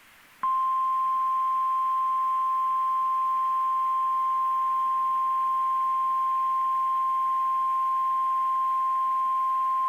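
NOAA Weather Radio 1050 Hz warning alarm tone: one steady, loud, single-pitched tone that switches on about half a second in, over faint radio hiss. It signals that a warning-level alert message follows, here a high wind warning.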